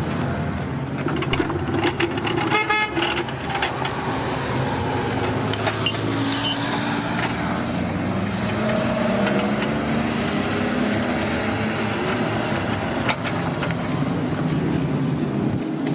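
Racing-car wheel change: a pneumatic impact wrench rattles briefly about two to three seconds in. Scattered knocks of tools and tyres sound over a steady low engine-like drone, which drops away at the very end.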